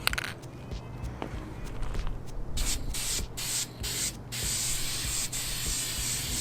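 Duplicolor Perfect Match aerosol paint can spraying: a few short hissing bursts about two and a half seconds in, then one longer steady spray.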